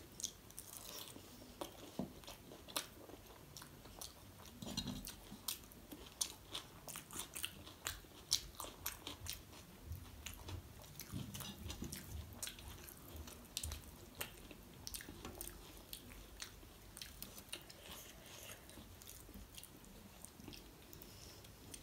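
Close-up eating sounds: chewing and wet mouth clicks as pieces of bhatura (deep-fried bread) dipped in chole are eaten, with fingers tearing the bread and squishing it in the gravy. The clicks come thick and irregular in the first half and thin out later.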